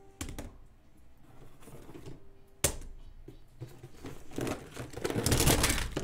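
Plastic puzzle cubes being set down and shuffled on a desk: a few sharp clacks, one loud one in the middle, then a dense burst of clattering near the end.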